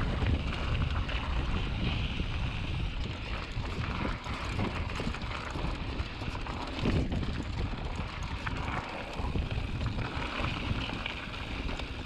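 Mountain bike ridden fast down a dirt trail: wind buffeting the microphone over the tyres rolling on dirt, with short rattles and knocks as the bike goes over bumps.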